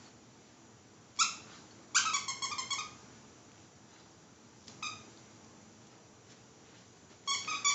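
Short high-pitched squeaks from a dog's squeaky toy being chewed: a single squeak about a second in, a quick run of squeaks around two seconds, another single one near five seconds, and a fresh run starting near the end.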